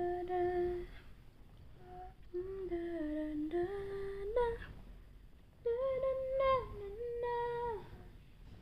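A woman humming a slow lullaby tune to a nursing baby falling asleep, held notes moving in small steps, in three phrases with short pauses between.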